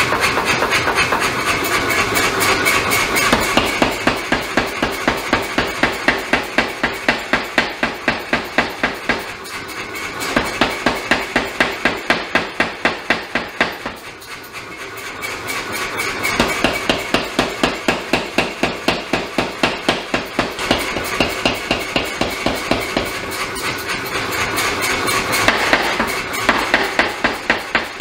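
Power hammer striking a red-hot damascus steel knife blade in a rapid, even run of blows. The blows let up briefly about ten seconds in and again around fourteen seconds, then resume.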